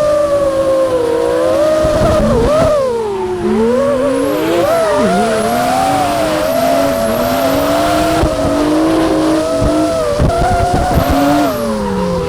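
Drift car's tyres squealing in a long slide, the squeal wavering in pitch, with the engine revving up and down underneath.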